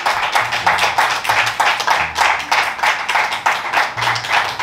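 A group of people clapping together in a fast, steady rhythm, about four claps a second, cheering on a drinker.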